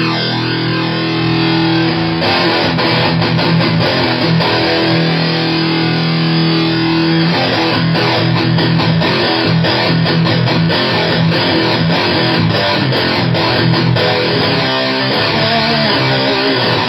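Fuzz-distorted electric guitar played through a solid-state amplifier, alternating held low notes with choppy chugging riffs.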